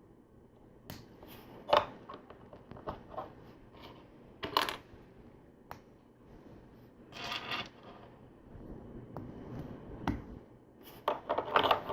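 Small plastic LEGO bricks clicking and snapping together by hand, with scattered light clacks as pieces are picked up and set down, and a short rattle of loose parts about seven seconds in.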